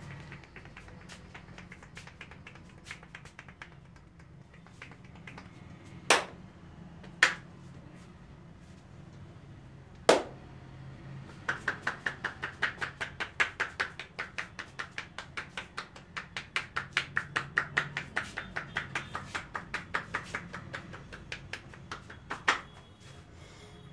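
Hand percussion on a person's head during an Indian head massage. A few sharp single slaps come first, then a long run of rapid, rhythmic tapping at about four strokes a second, and one last loud slap near the end.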